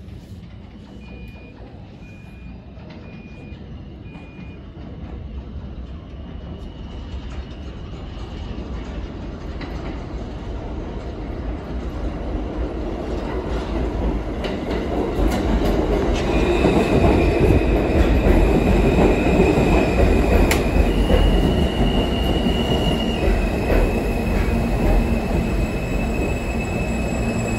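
R160 subway train approaching and pulling into the station. It grows steadily louder over the first half, then runs loud and close. From about the middle on, high steady squealing tones sit over the rumble of the wheels on the rails.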